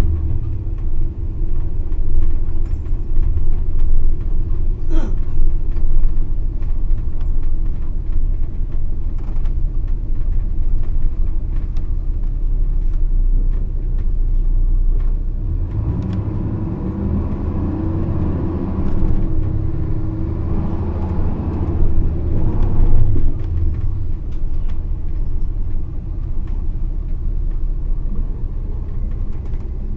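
Nissan Diesel KC-RM211GSN midibus with its FE6E diesel engine and JATCO three-speed automatic, running on the road with a heavy, steady rumble. About halfway through, the engine note rises and swells for several seconds, then settles back. This particular bus is known for an abnormal, ferocious running noise.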